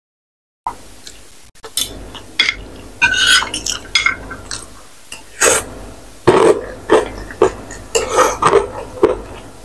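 Close-miked eating of instant ramen noodles: wet slurping and chewing mouth sounds, with a fork and spoon clinking and scraping on the plate. It begins after a short dead silence at the start, and the mouth sounds come thickest in the second half.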